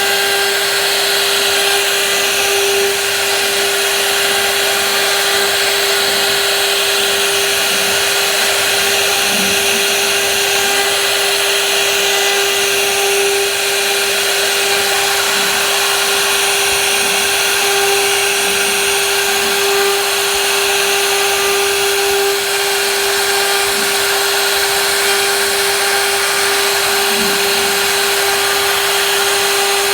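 Woodworking power tool running steadily: a constant motor whine over a dense hiss of cutting noise.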